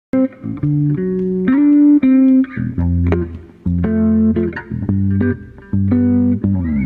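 Instrumental music: a run of plucked string notes over a bass line, with a sliding note near the end.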